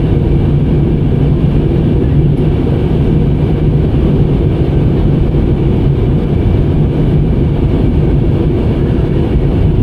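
Airliner cabin noise from a passenger seat during the approach to landing: the steady, even drone of the jet engines and airflow, heaviest in the low range, with no change in level.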